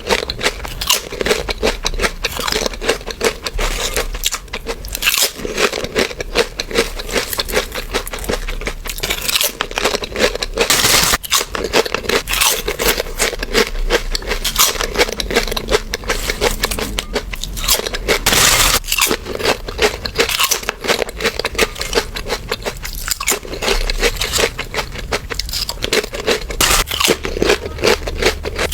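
Close-miked biting and chewing of crunchy snacks such as chips and cheese balls: a continuous run of crisp crunches.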